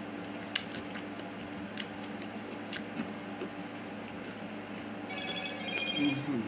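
A phone ringing with a warbling two-part electronic ringtone, starting about five seconds in. Under it is a steady low hum and a few soft clicks of eating.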